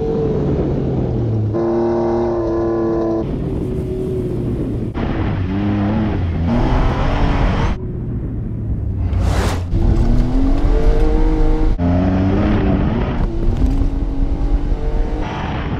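A Jeep Wrangler JK's V6 engine being driven hard off-road, revving with its pitch climbing and falling back several times as it accelerates through the gears. The sound shifts abruptly every few seconds, with a short burst of noise about nine seconds in.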